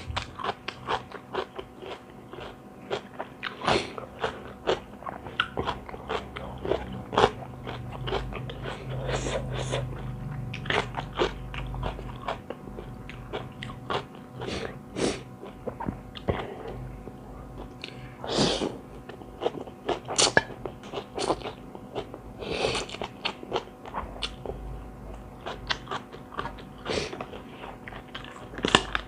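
A person chewing and biting mouthfuls of spicy Thai seafood rice-noodle salad with raw vegetables close to the microphone, with many short, irregular crunches and wet mouth sounds.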